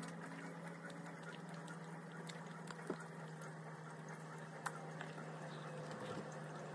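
Quiet room tone: a steady low hum, with two faint short clicks, one about three seconds in and one nearly five seconds in.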